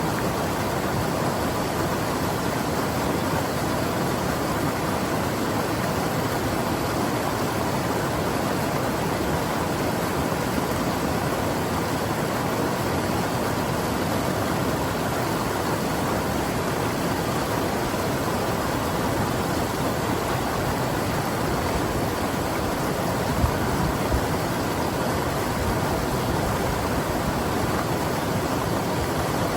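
The North Umpqua River's water rushing: a steady, even hiss with no change. Two brief low thumps come close together about three-quarters of the way through.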